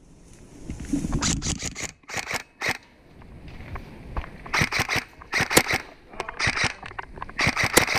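Airsoft electric rifles firing several short bursts of BBs, each burst a quick cluster of sharp clacks, repeated through the exchange.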